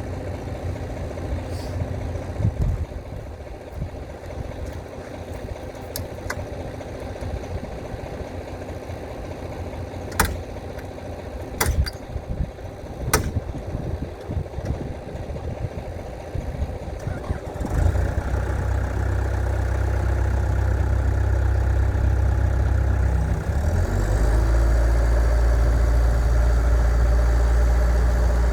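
Cat 262C2 skid steer loader's diesel engine idling, with a few sharp knocks partway through. About two-thirds of the way in the throttle comes up and the engine runs much louder. It then rises again to a higher steady speed near the end.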